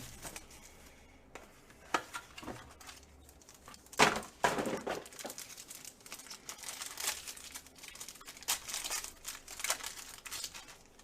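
Trading card packaging and cards being handled and opened, crinkling in irregular bursts, the loudest about four seconds in.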